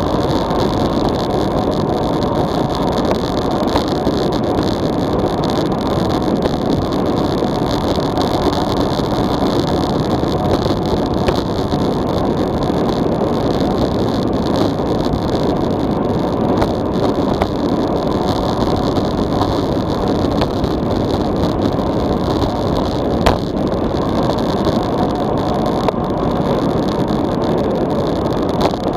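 Steady rush of wind over an action camera's microphone on a road bike coasting downhill at about 45 km/h, mixed with road noise from the tyres. A few brief knocks come through, the clearest a little over twenty seconds in.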